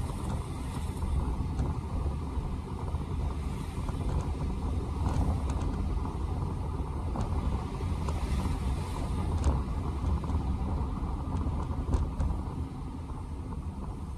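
Steady road noise inside a car's cabin while driving on a wet, slushy street: a low rumble of tyres and engine, with a few faint clicks.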